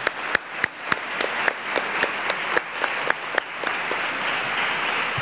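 Audience applauding, with sharp separate claps standing out over the first few seconds before it settles into an even sound.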